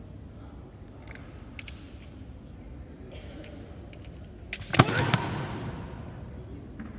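Bamboo kendo shinai tapping together a few times, then a quick flurry of sharp cracks about four and a half seconds in as a strike lands. The cracks are followed at once by a loud kiai shout that rings on in the hall.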